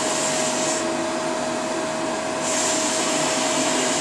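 Shark Navigator upright vacuum cleaner running steadily, with a constant motor whine, as it sucks up paper pieces. Its high hiss drops away about a second in and comes back after about two and a half seconds.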